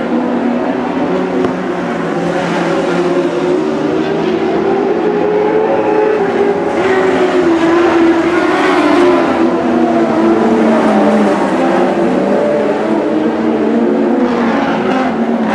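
A field of Lightning Sprints, small winged sprint cars, racing on a dirt speedway: several engines running hard together, their pitch rising and falling through the turns, louder about seven to nine seconds in as the pack passes close.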